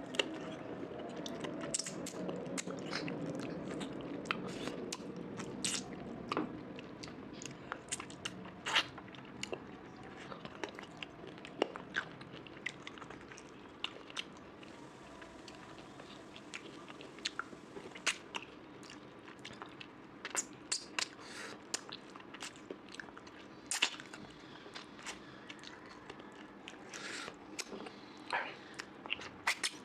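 A person chewing and eating a rice-and-curry meal close to the microphone: wet mouth sounds broken by many scattered sharp clicks and smacks.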